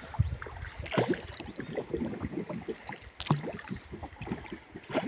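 Water splashing and lapping against a paddled boat as it moves along a river, with a few louder splashes from paddle strokes.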